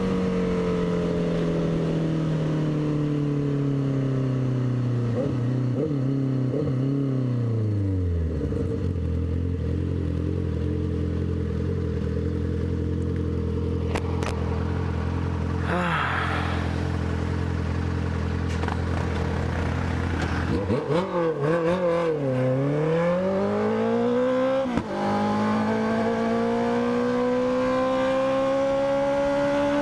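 Honda CB650F's inline-four engine, loud, slowing in revs for several seconds and then idling steadily. Its pitch wavers up and down a few times as it pulls away, then climbs steadily as the bike accelerates.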